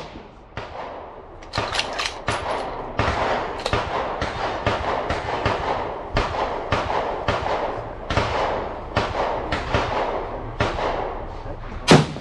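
Gunfire on a shooting range: many gunshots from several guns, about two a second and overlapping, each with an echo tail, and one sharp, louder shot near the end.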